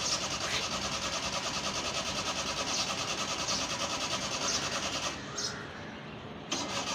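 Suzuki Mehran's small three-cylinder carburetted engine running just after a cold start, with a steady rapid pulse. About five seconds in it drops quieter for over a second, then comes back suddenly.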